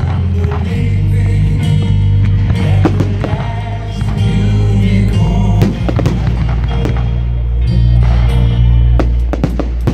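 Aerial fireworks shells bursting and crackling, with sharp bangs scattered through, over loud music with a heavy bass.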